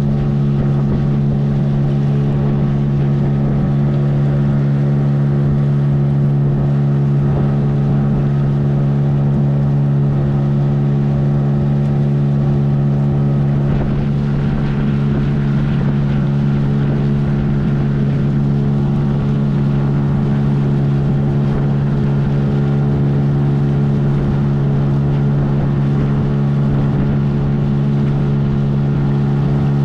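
Motorboat engine running steadily at a constant speed: a loud, even drone that holds unchanged throughout.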